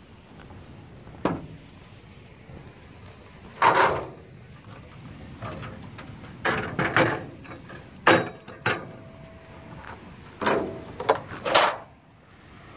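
Metal post of a fallen street sign knocking and scraping against a concrete sidewalk, in a string of short, irregular clanks and scrapes.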